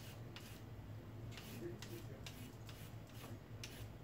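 Faint, quick scraping strokes at an irregular pace of about two a second: a raw carrot being peeled by hand over a plate. A low, steady hum runs underneath.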